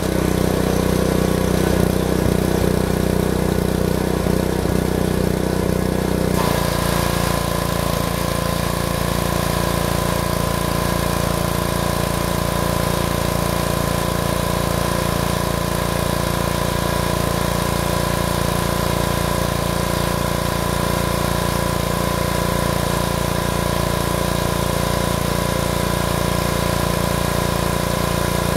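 A 2600 psi gas pressure washer's engine runs steadily, blasting a water jet. About six seconds in, its sound shifts to a new steady note.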